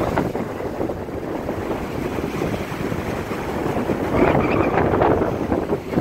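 Waves breaking and washing up a beach in a strong wind, with heavy wind buffeting on the microphone. A wave crashes and surges louder about four seconds in.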